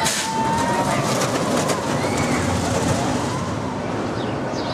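Steel roller coaster train rolling along its track with a steady rushing noise that starts suddenly, with a few short, high calls over it.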